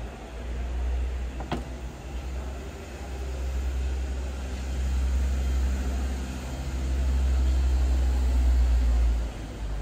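Wind buffeting the microphone, a low rumble that swells and fades and drops off sharply near the end. About a second and a half in there is a single sharp click as a kitchen knife is set down on the wooden chopping board.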